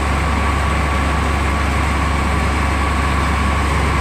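Sewer-cleaning truck's engine and pump running steadily: a loud, even low drone with a thin steady whine over it.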